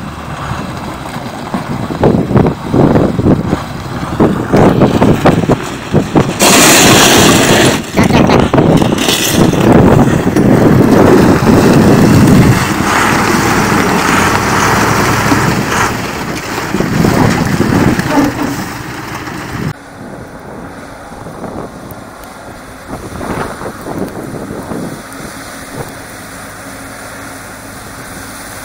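Heavy truck engine running hard and revving as the truck works through broken river ice, loud and rough with noisy stretches. About two-thirds of the way through it changes abruptly to a quieter, steady engine sound.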